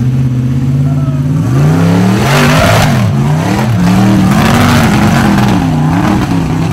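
Rock buggy's engine running steadily, then revved hard under load, its pitch rising and falling over and over as it claws up a steep dirt hill. Two bursts of hissing noise, about two and four seconds in, fit the tires churning loose dirt.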